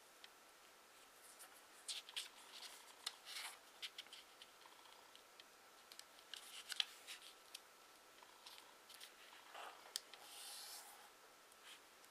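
Origami paper being folded and creased by hand: faint, irregular crinkles and crisp ticks with brief rustles of the sheet.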